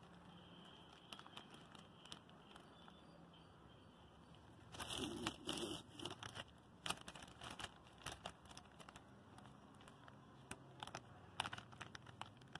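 Thin clear plastic bag crinkling in the hands as it is gathered and bunched around a plant stem: faint scattered rustles, with a louder burst of crackling about five seconds in.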